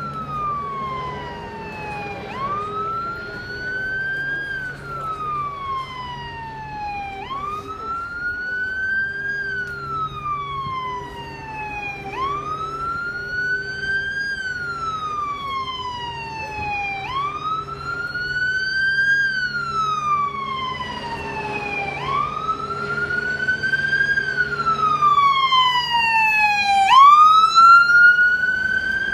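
Emergency vehicle siren in a slow wail, rising and falling about every five seconds, growing louder toward the end as it approaches. Near the end a faster, higher siren sweep joins it.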